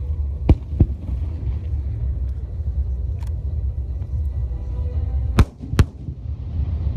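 Aerial firework shells bursting in a starmine display: sharp bangs in two pairs, one about half a second in and one near the end, the second pair the loudest, over a steady low rumble.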